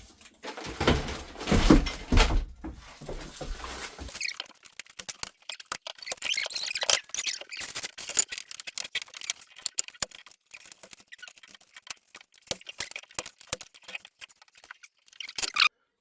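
Hands working on a UPVC window frame: handling noise and knocks for about four seconds, then many small clicks, crackles and squeaks, with a brief louder scrape near the end.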